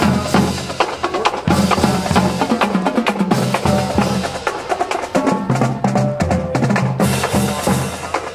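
Marching band playing as it marches: bass drums, snare drums and cymbals beat time under held brass notes.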